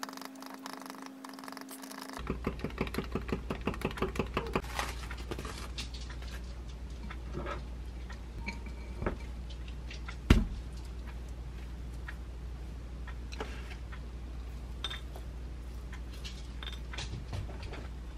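A small whisk clinking rapidly against the inside of a glass as a protein shake is stirred, about five strokes a second for a few seconds. Then come scattered kitchen handling knocks and one sharp thump about halfway through, as a steamed sweet potato and egg dish is turned out onto a plate.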